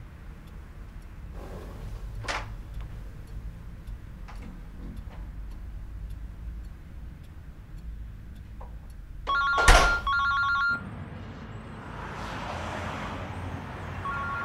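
A telephone ringing with a rapid two-tone trill, loud, for about a second and a half about nine seconds in, with a sharp thump in the middle of it. It cuts off abruptly, giving way to a steady hiss, and rings again near the end. Before the ring there is only quiet room tone with a few faint knocks.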